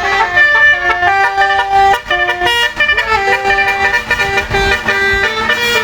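Basuri telolet musical horn on a bus playing a quick tune of short held notes, the pitch stepping up and down every fraction of a second.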